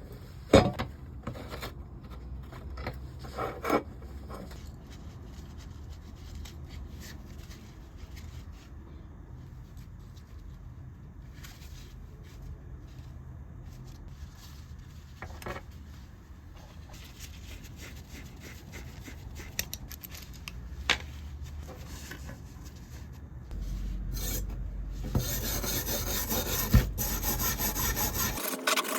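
Rubbing and scraping of hand restoration work, with a few sharp clicks and knocks. The noise gets louder and denser about five seconds before the end.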